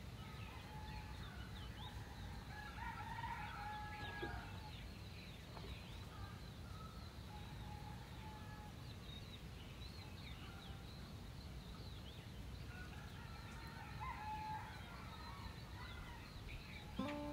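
Faint crowing of a rooster, twice: about three seconds in and again about fourteen seconds in. Many short high chirps and a low steady rumble lie beneath.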